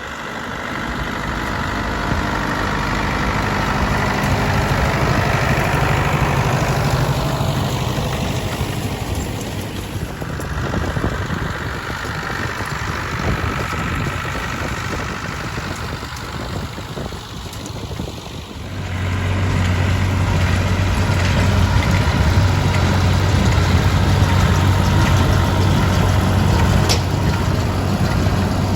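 Diesel engines of Ford farm tractors running at work, coming and going in loudness; from about two-thirds of the way in one engine runs close and steady with a deep hum.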